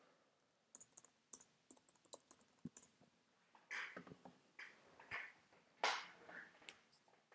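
Faint typing on a computer keyboard: a quick run of key clicks over the first few seconds, then a few scattered, duller sounds.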